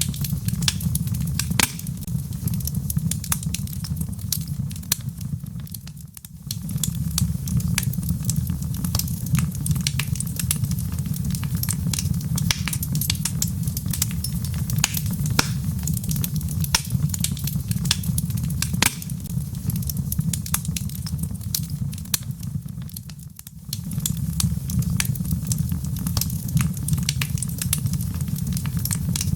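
Wood fire in a fireplace crackling, with many sharp pops and snaps over a steady low rumble; the sound dips briefly twice, about 6 and 23 seconds in.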